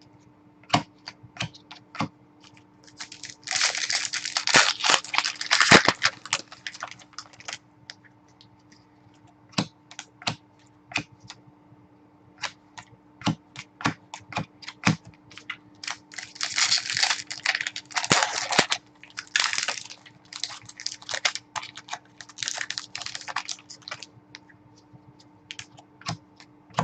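Hockey card packs being opened: foil wrappers crinkle and tear in three rustling spells, with sharp clicks and taps from the cards being handled in between. A faint steady electrical hum sits underneath.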